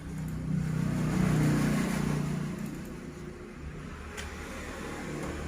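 A road vehicle passing by, its engine and road noise swelling to a peak about a second and a half in and fading away by about three seconds. A single small click near the end.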